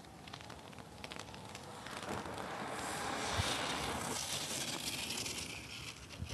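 Wind rushing over the microphone of a small keychain camera hanging from a kite string, growing louder about two seconds in, with crackling clicks as the camera shakes on the line.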